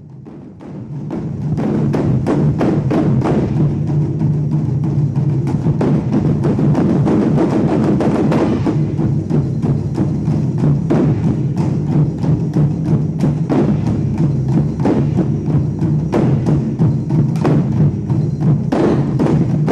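Music with heavy percussion, drums and wood-block-like strikes keeping a steady beat; it fades in over the first second or two.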